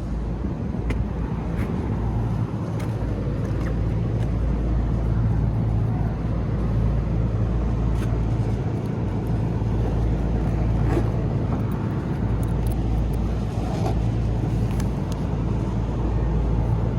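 Steady low mechanical hum of running rooftop HVAC equipment, with a few faint light taps.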